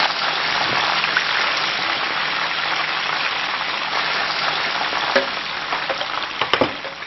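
Prawns in a flour and corn meal batter deep-frying in hot oil in a pan, a steady sizzle. Near the end the sizzle eases and a few light clicks are heard.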